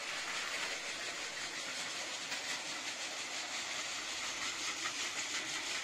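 Battery-powered Plarail toy trains running on plastic track: a steady high whir from their small motors and gears, with light clicking of wheels over the track joints.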